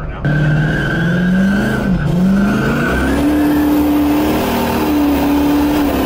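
Pickup truck doing a burnout, heard from inside the cab: the engine revs up under a steady tire squeal that lasts about three seconds, then the engine holds at higher revs with rushing tire and road noise.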